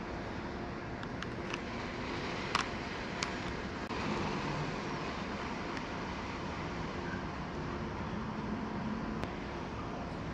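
Steady hum of distant road traffic, with a few short clicks in the first few seconds.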